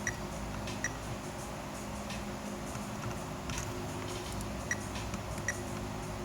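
A steady low hum of workbench room tone, with four faint short metallic ticks: one near the start, one just under a second in, and two close together near the end.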